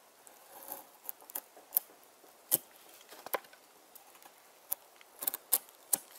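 Mora knife blade carving the handle of a spruce spoon blank: about a dozen short, sharp cuts and snaps of wood at an irregular pace, each one taking off a small shaving.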